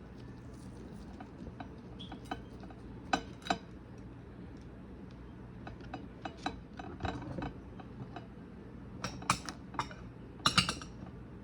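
Light clinks and knocks of dishes and utensils while food is being assembled, a scatter of separate taps with two louder clusters near the end.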